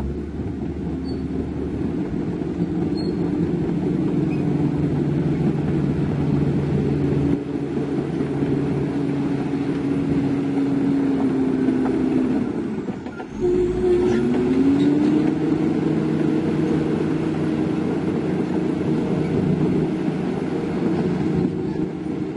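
Heavy diesel engine running steadily under load. A little past halfway its level and pitch drop briefly, then the pitch climbs back up and holds, like a gear change or the throttle easing off and coming back.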